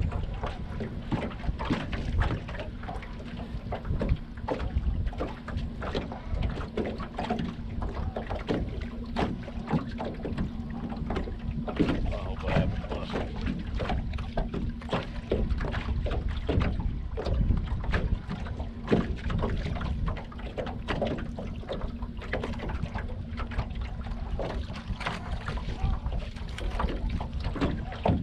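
Small fishing boat on the water: wind buffeting the microphone and water knocking against the hull, over a steady low hum, with frequent short knocks and clicks.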